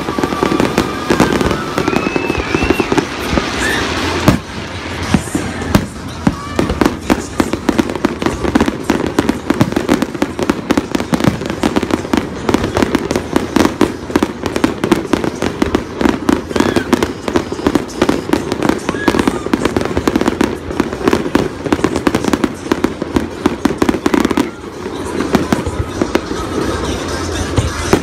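Fireworks display going off: shells bursting in quick succession, a dense run of bangs and crackles, over crowd chatter. A few whistling glides sound in the first few seconds.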